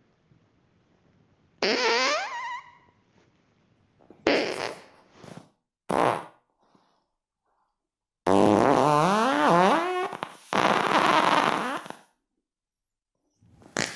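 A series of farts: a pitched one about two seconds in that drops in pitch, two short ones a few seconds later, then the loudest, a long wavering fart lasting nearly four seconds with a brief break in the middle.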